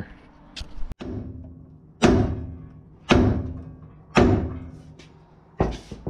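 Hammer blows on the steel front hub and steering knuckle of a Ford F-150 4x4, struck to shock the seized hub loose: a few light knocks, then four heavy ringing strikes about a second apart.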